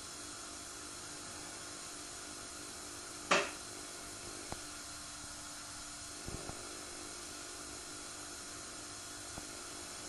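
Samsung WW80J5555FWEU front-loading washing machine running a delicates wash: a steady hum with a faint whine, one brief swish of water and laundry in the drum about three seconds in, and a few faint clicks.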